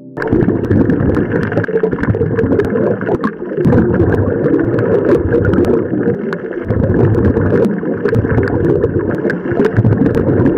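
Muffled underwater sound picked up through a diving camera's housing: a steady rush of water and bubbles, dipping briefly a few times, with many scattered sharp clicks.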